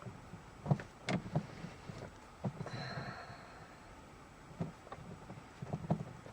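Scattered small clicks and knocks of a metal shift knob and its stop nut being handled and threaded onto a car's gear-shift lever, with a short rustle or sniff near the middle.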